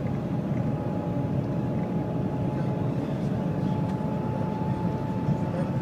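Steady cabin noise inside the Shanghai Maglev train at speed: an even rushing rumble with a faint steady high tone running through it.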